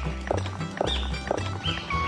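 Background music with a bouncy bass line and short gliding notes repeating about twice a second.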